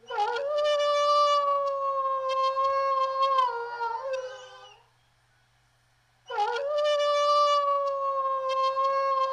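Wolf howling: two long howls, each rising quickly at the start, held on one steady pitch for about four seconds, then dropping away. The second, matching howl begins about six seconds in.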